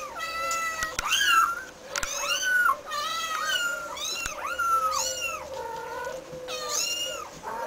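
Young kitten mewing over and over, short high-pitched arching mews about two a second.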